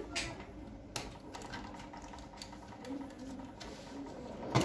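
Light scattered clicks and rustles of a wire harness and its plastic connectors being handled against a laser printer's sheet-metal frame, with a louder knock at the very end.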